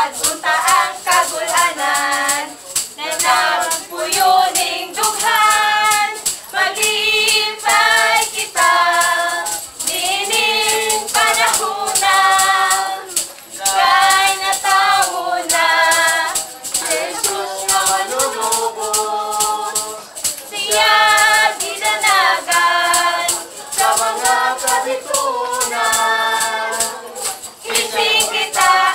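Group of women's voices singing a Christmas song together over a backing track with a steady shaker beat.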